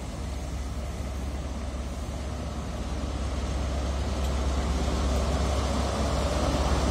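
InterCity 125 high-speed train passing on the rails: the coaches rumble by and the deep drone of the Class 43 diesel power car's engine grows louder as the power car draws level.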